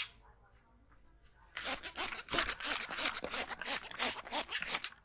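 A barber's hands working briskly over hair and scalp in a head massage: rapid rubbing and patting strokes, several a second, starting about a second and a half in.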